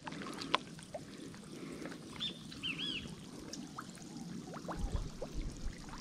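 Water trickling and splashing, with a few short, faint bird chirps about two to three seconds in.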